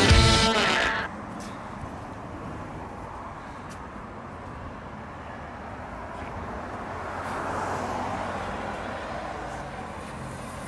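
Music stops about a second in, leaving steady street traffic noise that swells for a couple of seconds past the middle, as of a vehicle going by.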